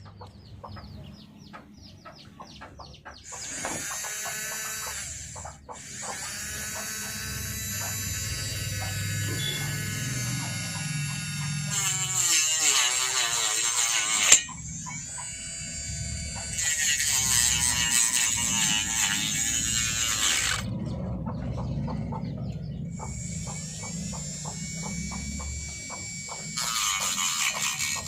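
Small DC motor of a homemade angle grinder running, starting up about a second in, its pitch rising and falling as the speed changes. Several stretches of harsher, louder high-pitched noise come in partway through and again near the end, most likely the disc grinding against material.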